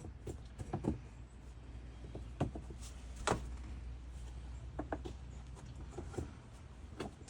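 Vinyl laminate floor plank being set down and worked into place, with scattered light knocks and clicks of the plank against the floor. The sharpest knock comes about three seconds in.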